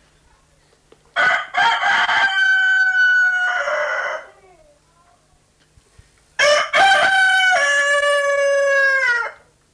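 White rooster crowing twice, about five seconds apart. Each crow is a few short choppy notes followed by a long held note that drops in pitch at the end.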